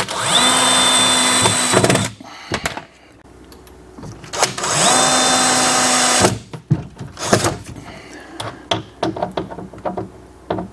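DeWalt cordless drill/driver run twice, about two seconds each, spinning up quickly and then holding a steady whine as it drives screws through the cabinet door hinges. It is followed by a scatter of light clicks and knocks.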